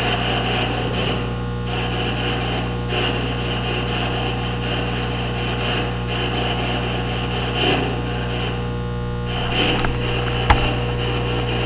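Steady low electrical hum with a fixed mid tone, under a hiss of static that swells and fades in uneven patches, and a single sharp click about ten and a half seconds in.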